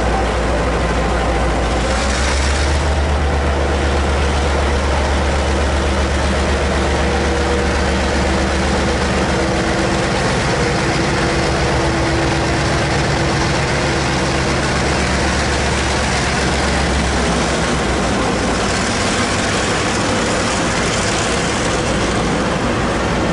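TRA R157 diesel-electric locomotive passing close by at low speed, its engine giving a loud, deep steady drone. About 17 seconds in the engine drone fades and the rolling noise of the freight wagons on the rails takes over.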